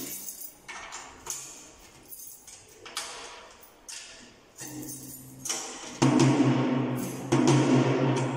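PDP drum kit's rack tom tapped with a stick, one stroke every half second to a second, while its tension rods are turned with a drum key to tune it. About six seconds in, the hits get much louder and the drum rings out with a low, sustained pitch.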